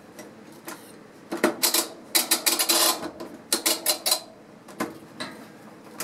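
Mechanical cycle timer knob on a Whirlpool top-load washer being turned by hand, clicking in several short runs of rapid clicks.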